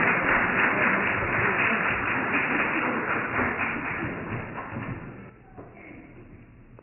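Congregation applauding in a large hall, a dense patter of many hands that dies away about five seconds in.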